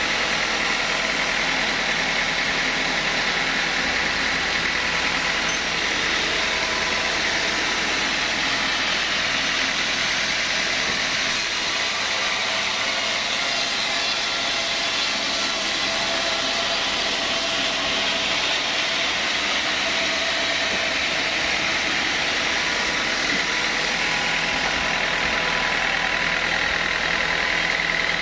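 Sawmill saw machinery running steadily, a dense, even mechanical noise.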